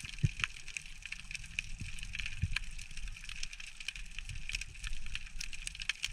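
Underwater sound picked up through a camera housing in shallow sea: a steady crackle of many sharp clicks over a hiss, with a few low knocks.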